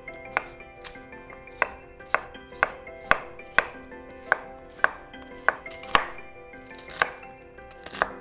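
Chef's knife chopping zucchini and red bell pepper on a wooden cutting board: sharp knocks of the blade striking the board, about two a second at an uneven pace.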